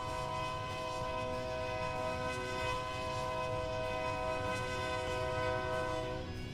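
Multi-note train horn held in one long blast, several steady tones sounding together over a low rumble, cutting off near the end.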